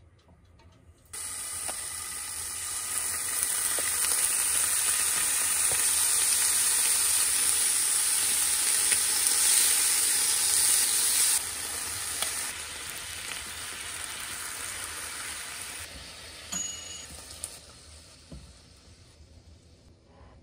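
Thin slices of beef sizzling in a hot frying pan, starting suddenly about a second in as the meat goes into the oil. The sizzle is loudest in the first half, drops a step twice, and dies away near the end.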